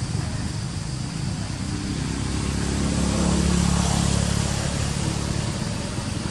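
Low, steady motor vehicle engine rumble in the background, swelling about halfway through and then easing off, like a vehicle passing by.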